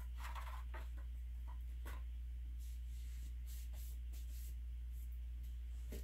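Steady low hum with faint, scattered rustles and light clicks of plastic paint cups and plastic sheeting being handled.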